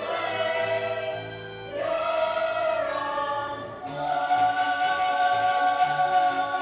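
A choir singing long held notes over an instrumental accompaniment with a moving bass line; the sung chord changes about every two seconds.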